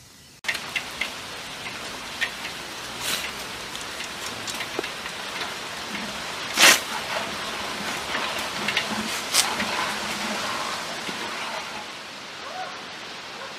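Steady rain falling, with scattered sharp drops striking a hard surface; it eases slightly near the end.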